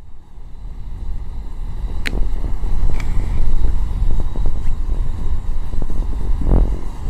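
Wind buffeting the camera microphone as a loud, uneven low rumble, with a couple of sharp clicks about two and three seconds in.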